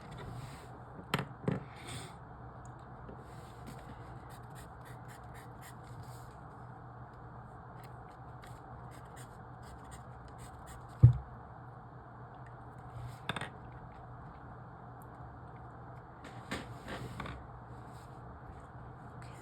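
Quiet writing on paper: short, scratchy strokes and marks over a steady low room hiss, with a few soft clicks and one loud low thump about eleven seconds in.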